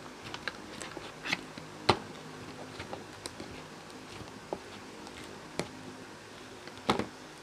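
Sticky butter slime being scraped out of a bowl: scattered soft clicks and a few sharper knocks, over a faint steady low hum.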